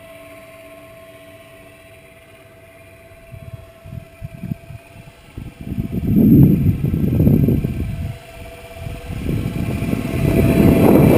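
Battery-electric motor of a small RC Magnus-effect aircraft running at full throttle, a steady thin whine that grows louder near the end as the aircraft passes close. From about three seconds in, loud, irregular gusts of low rumbling buffet the microphone.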